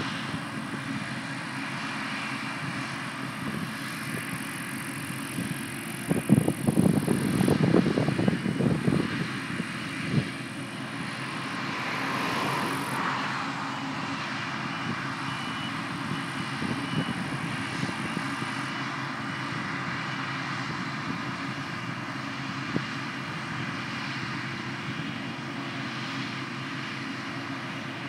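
Claas Lexion 660 combine harvester running steadily at a distance while it unloads grain through its auger into a tractor-drawn trailer, a continuous machine hum. About six seconds in, a louder, irregular low rumble lasts some four seconds.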